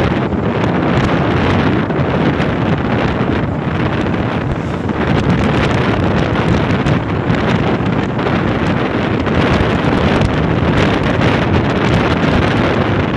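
Steady wind rush buffeting the microphone of a phone on a moving motorcycle at road speed.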